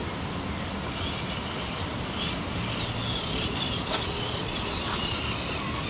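Traxxas TRX-6 six-wheel RC crawler's stock electric motor and drivetrain whining, the pitch wavering as the throttle is worked on a rock climb, over a steady rushing noise.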